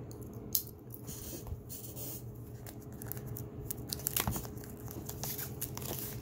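A knife cutting through plastic shrink wrap around cardboard punch boards: scattered scratching and crinkling crackles, coming thicker about four seconds in.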